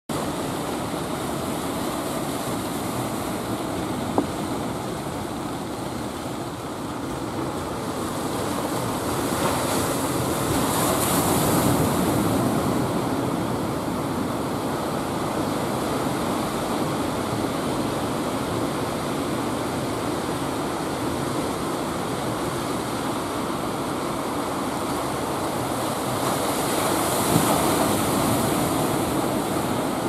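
Ocean surf: waves breaking and washing in as a steady rush, growing louder about ten seconds in and again near the end as bigger waves break.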